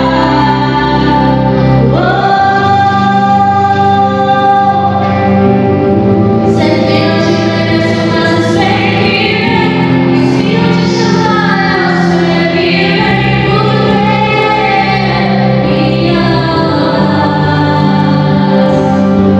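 Gospel worship song sung by a group of voices over instrumental accompaniment, with long held notes.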